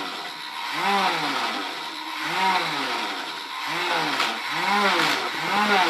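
Toy lawnmower's engine sound effect running: a revving tone that swells up and falls back about every second over a steady buzzing hiss.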